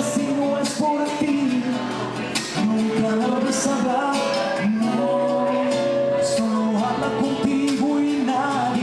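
A Latin American song with a man singing over acoustic guitar.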